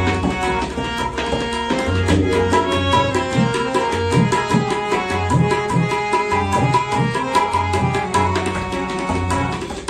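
Tabla played in a rhythmic instrumental introduction, sharp right-hand strokes over bass-drum strokes whose pitch swoops, against a steady sustained melodic backing.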